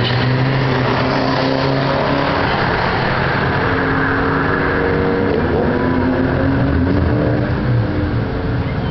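Road traffic passing on a multi-lane street: car engines running and tyres on the road, with engine hums that rise and fall in pitch as vehicles go by.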